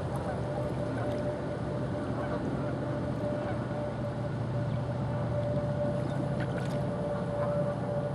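Steady low outdoor rumble with a constant thin hum throughout. A few faint bird calls, like distant goose honks, come near the end.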